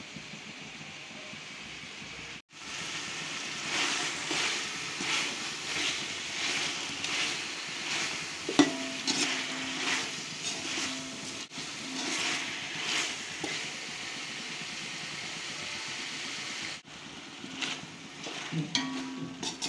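Chicken pieces in masala sizzling in a stainless steel pot while a metal slotted spoon stirs and scrapes them around the pot in repeated strokes. About nine seconds in, the spoon gives one sharp clink against the pot.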